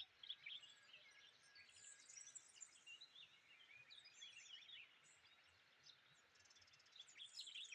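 Faint birdsong: many short high chirps and twittering phrases from small birds, growing a little louder near the end.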